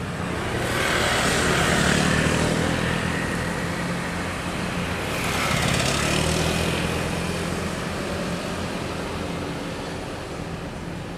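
Diesel-electric locomotive hauling a passenger train as it approaches, its engine a steady low drone. Two louder rushing swells build and fade about a second and about five seconds in.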